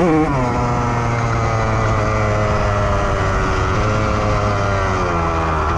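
Honda CR125's single-cylinder two-stroke engine under way. It gives a quick rev blip at the start, then holds a steady pitch that drifts slowly lower.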